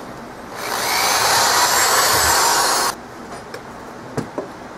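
Handheld power drill running for a little over two seconds as it bores a mounting hole through plywood, with a faint rising whine. It stops abruptly, and a couple of light wooden knocks follow near the end.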